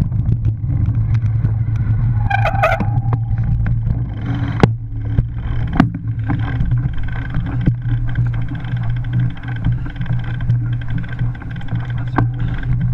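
Cyclocross bike ridden fast over a bumpy dirt trail: steady wind rumble on the microphone with tyre and rattle noise, and sharp knocks over bumps, the hardest just under five seconds in, others near six and twelve seconds. About two seconds in, a brief high-pitched squeal.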